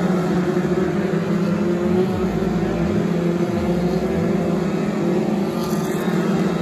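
A pack of BriSCA F2 stock cars racing around an oval, many engines running together in a steady drone.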